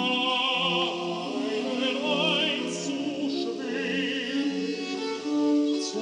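Opera singing with orchestra, the singer's voice carrying a wide vibrato, from an FM broadcast played through the small speakers of a homemade Arduino radio built on a TEF6686 tuner.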